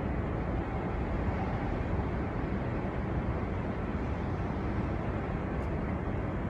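Storm wind blowing steadily, a dense low rumble with no breaks.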